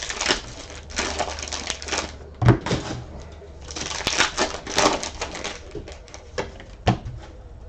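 Trading card pack wrappers being crinkled and torn open, in several rustling bursts, with a few sharp clicks and taps as the cards are handled.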